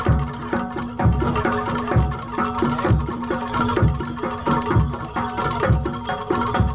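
Javanese jaranan dor accompaniment: hand drums play a quick pattern over a deep drum struck about once a second, with sustained ringing metallic tones.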